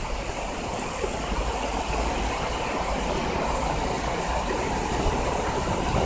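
Heavy rain hissing steadily under a low rumble that slowly grows louder: thunder rolling in after a nearby lightning strike.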